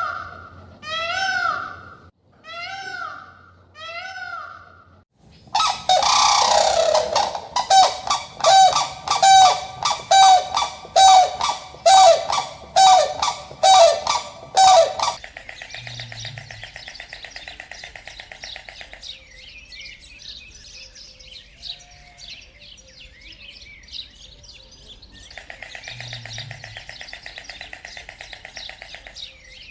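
A sequence of animal calls: first a few arching, pitched cries about a second apart, then about fourteen loud honking calls in quick even succession, then a softer chirping, buzzing chorus of birds.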